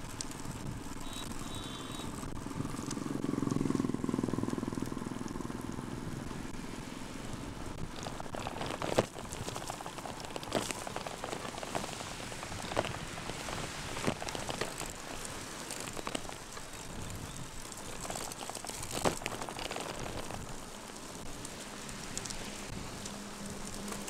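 Steady hiss of rain and of road bike tyres on wet asphalt, picked up by a rain-spattered camera on the riding cyclist. A few sharp taps sound now and then, the loudest about nine seconds in.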